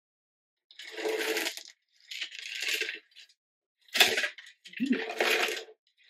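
Sunflower seeds rattling and sliding around inside a box as it is shaken and tilted, in four short bursts about a second each.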